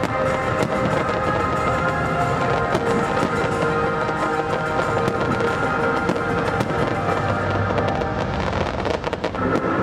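Aerial firework shells bursting and crackling, many bangs and crackles, thickest near the end, over loud accompanying show music.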